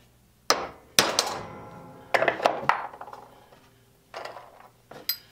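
Hammer striking a prick punch set on a steel rail to mark a hole centre: several sharp metallic taps, the first ones ringing on for a second or more, then a couple of lighter knocks near the end.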